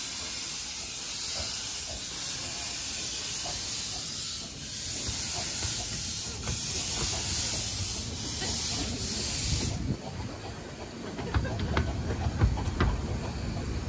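Steam hissing steadily from a departing 15-inch-gauge steam locomotive, cutting off abruptly about ten seconds in. After that, the carriages rumble past with clicks and knocks from the wheels on the rails.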